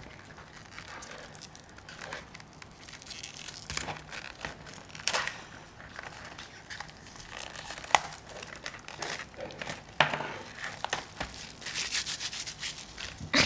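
Plastic packaging crinkling and rustling as it is worked open by hand, with sharp snaps and clicks now and then.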